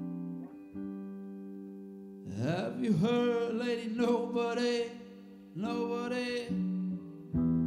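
Live band music on electric guitar and electric bass: held, sustained notes, then from about two seconds in a louder passage of bending, wavering pitched lines.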